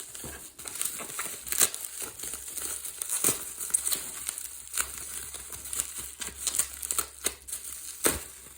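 Packing material crinkling and crackling in irregular handfuls as it is unwrapped and handled around a plastic model horse.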